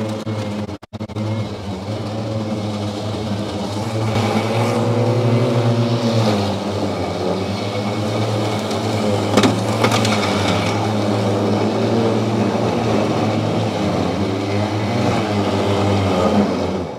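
EGO 52-inch battery-powered zero-turn riding mower cutting grass: its electric motors give a steady whine whose pitch dips and recovers a few times as the load changes. It grows louder from about four seconds in as the mower passes close, with a single sharp click near the middle.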